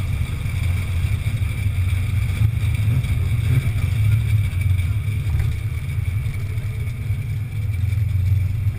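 Fox-body Mustang V8 idling, a steady low rumble with no revving.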